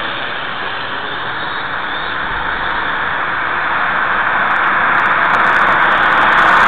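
Small quadcopter drone's four propellers buzzing overhead in a steady whirr, growing louder toward the end as it comes closer.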